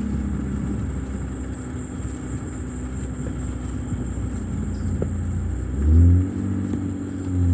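Car driving, heard from inside the cabin: a steady low road and engine rumble. About six seconds in, the engine pitch rises as it accelerates, with a brief low thump.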